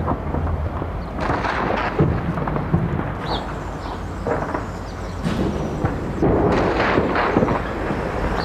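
Echoing gunfire and explosions over a continuous low rumble: sharp cracks come throughout, with heavier clusters of firing about a second in and again from about five seconds in.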